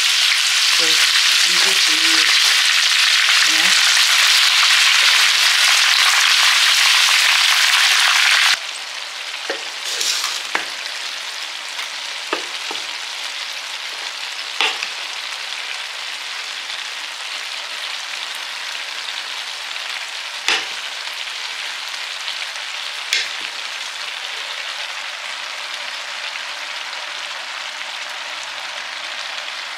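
Chicken pieces frying in hot oil in a wok, a loud steady sizzle that cuts off suddenly about eight seconds in. Then comes the quieter steady sizzle of vegetables and rice frying in the wok as a wooden spoon stirs them, with occasional sharp knocks of the spoon.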